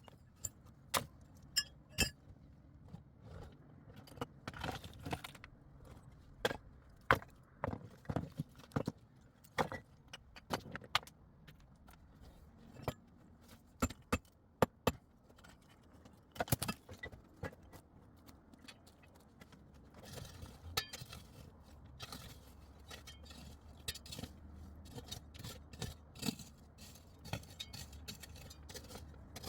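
Stones clinking and knocking against each other in an irregular series of sharp clicks, with a faint low rumble under them later on.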